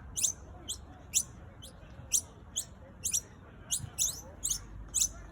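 Baby birds in the nest squealing for food: a steady string of short, very high-pitched calls, about two a second, each a quick downward sweep in pitch. The begging calls of hungry nestlings.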